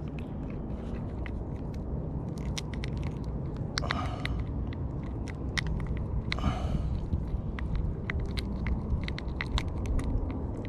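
Needle-nose pliers clicking and scraping at a hooked grunt's mouth as the hook is worked free: many sharp irregular clicks, with short rasping bursts about 4 and 6.5 seconds in, over a steady low rumble.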